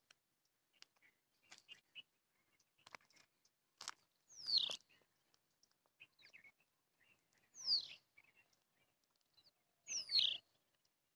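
A bird calling three times, about three seconds apart: each call is a short, faint note that sweeps down in pitch, with small ticks and chirps between.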